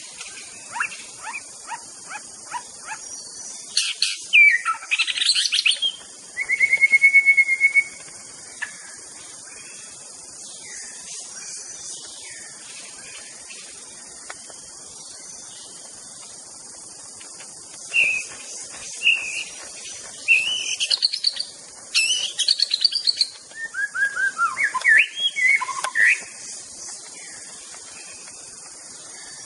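White-rumped shama singing in bursts of varied whistles and fast chattering phrases, including one held note. The song falls silent for several seconds midway, then starts again, over a steady high insect buzz.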